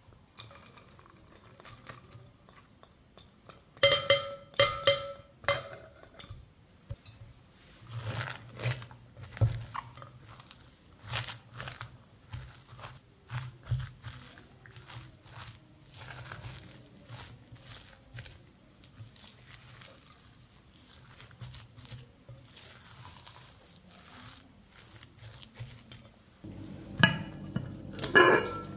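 Chopped red cabbage tipped from a small bowl into a glass mixing bowl, with a few loud ringing knocks of bowl on glass about four seconds in. Then a silicone spatula stirring a mash of potato and chopped vegetables in the glass bowl: soft irregular scrapes and clicks. Near the end a glass bowl is handled, with a louder rattle of glass.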